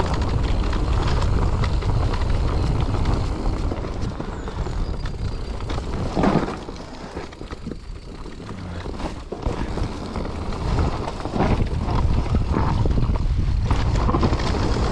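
Mountain bike descending a dirt trail: wind buffeting the camera microphone over the rumble and rattle of tyres and frame, with knocks over bumps and a heavier thump about six seconds in.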